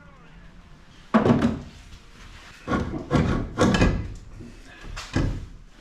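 A series of about five separate knocks and clunks from hand work on a car's front suspension parts.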